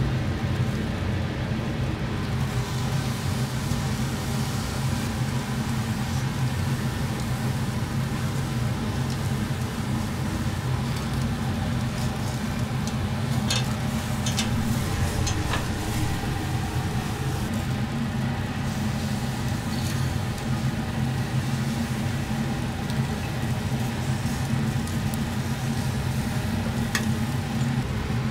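Food sizzling on a hot pan over a steady low kitchen hum, with a few light clicks of utensils about halfway through and near the end.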